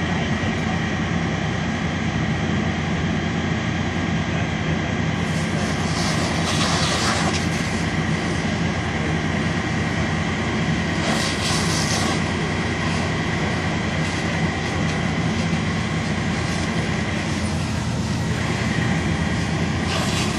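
A large engine running at a steady speed, with brief hissing surges about six seconds in, about eleven seconds in and again near the end.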